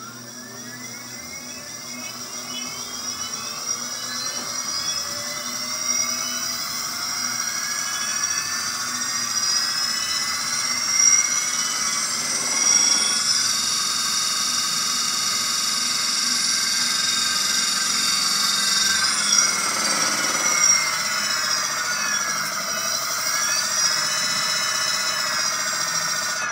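Magic Pie brushless hub motor spinning up with no load: a high electric whine that climbs steadily in pitch for about twelve seconds, then holds near top speed with a couple of brief dips in pitch before climbing back.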